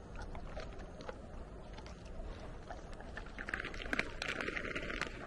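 Dogs chewing and licking jerky treats close to the microphone: small wet clicks and crunches, getting busier and louder about three and a half seconds in, over a low steady rumble.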